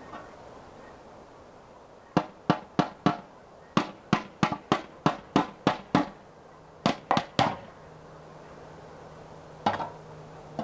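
Metal ladle knocking against a large metal cauldron: about fifteen sharp, ringing clanks at roughly three a second in short groups, from about two seconds in until past seven seconds, with one more clank near the end.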